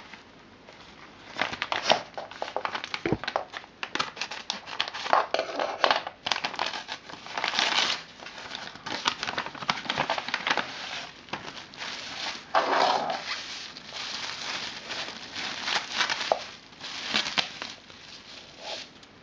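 Packaging being unwrapped and handled, with crinkling and rustling in irregular bursts and a few sharper clicks and knocks between short pauses.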